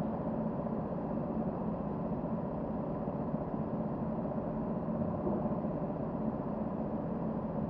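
Go-kart engine running steadily at idle, holding one even pitch with no revving.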